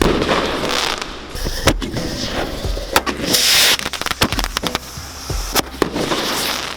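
Fireworks going off in quick succession: many sharp cracks and pops, with a dense hissing burst about three and a half seconds in.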